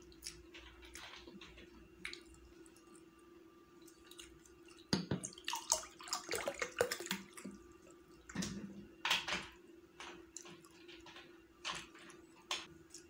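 Close-miked wet eating sounds of chicken biryani: mouth smacks and chewing in clusters, busiest about five to seven seconds in and again around nine seconds, with a few single smacks near the end.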